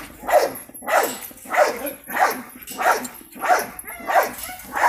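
A dog barking over and over at an even pace, about three barks every two seconds.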